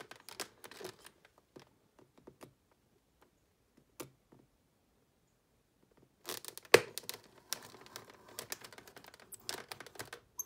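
A knife blade cutting and scraping through a stiff clear plastic clamshell blister pack, the plastic crinkling and cracking. Faint scattered clicks at first, a short pause, then from about six seconds in a busier stretch of crackling with one sharp crack.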